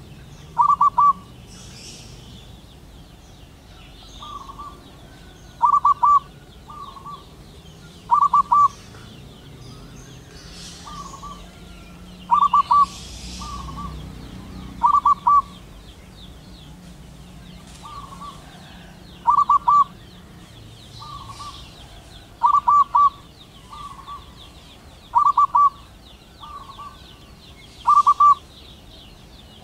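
Male zebra dove cooing its song to call a female: a short stuttering, trilled coo phrase repeated every two to three seconds, about nine loud phrases with softer ones in between.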